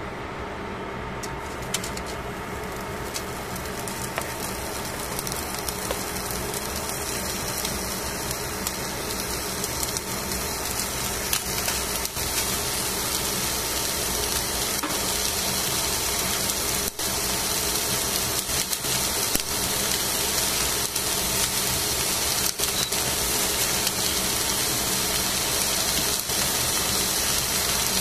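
Two fish fillets sizzling on aluminium foil in a heating pan: a steady hiss that builds gradually, with scattered pops and crackles growing more frequent as the pan heats.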